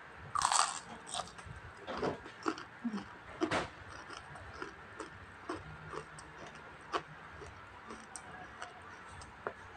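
Close-miked eating of crispy fried danggit (dried rabbitfish): a loud crunching bite about half a second in, then chewing with scattered crunches and wet mouth sounds that grow sparser after the first few seconds.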